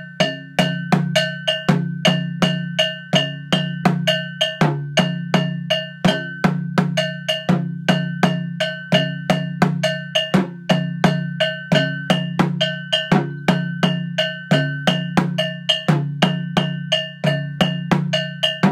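A metal bell played together with a dundun drum in a Kpanlogo rhythm. The bell strikes come steadily, about three to four a second, each ringing briefly at a few fixed pitches, over low drum tones that come and go with the pattern.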